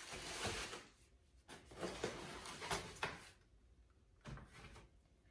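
Cardboard shoe box and its paper stuffing being handled, as a sneaker is put back in and the box is moved aside. It comes as three bursts of rustling and scraping, the longest in the middle.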